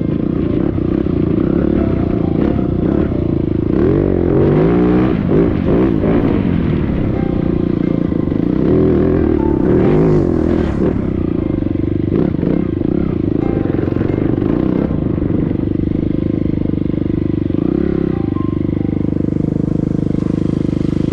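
TM EN300Fi fuel-injected four-stroke single-cylinder dirt bike engine under load, revving up and falling back several times as it climbs a rocky trail, with clattering from stones and the chassis.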